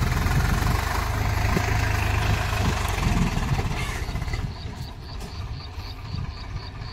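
Swaraj 735 FE tractor's three-cylinder diesel engine running under load as it pulls a rotavator through the soil. The sound becomes noticeably quieter a little over four seconds in, as the tractor is farther off.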